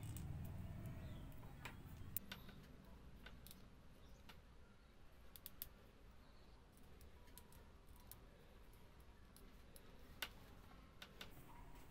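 Faint, scattered small clicks of thin wooden skewer spokes being fitted through the holes of a miniature wooden wheel's rim and into its hub, over a low hum that fades after the first two seconds.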